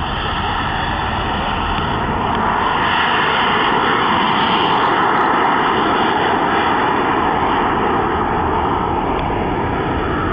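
Twin model jet turbines of a radio-controlled A-10 Thunderbolt at takeoff power, a steady rushing jet noise. It grows louder over the first few seconds as the plane runs down the runway, then eases a little as it lifts off and climbs away.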